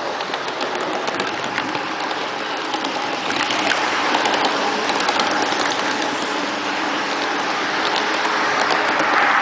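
Garden-railway model train running fast, heard from on its roof: a steady rushing hiss of the wheels on the track with a scattering of small clicks and a hum underneath, growing louder from about three seconds in.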